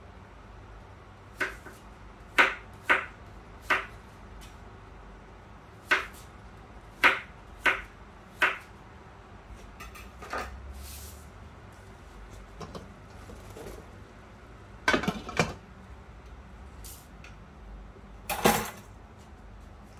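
About a dozen scattered sharp clinks and knocks of cookware and utensils. The loudest and longest comes near the end, as the glass lid on the cooking pot is handled.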